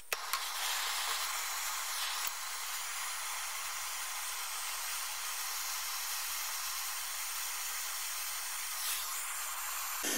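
Handheld gas torch burning with a steady hiss, its flame heating the copper cylinder's head joint to melt a ring of lead-free solder into it. The hiss grows fuller near the end.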